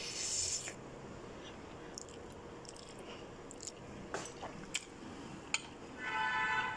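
Faint eating sounds: a short slurp of instant noodles at the start, then quiet chewing clicks. Near the end a cat meows briefly.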